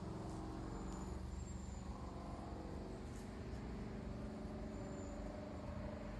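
Steady low hum of an engine running, with its pitch lines holding even.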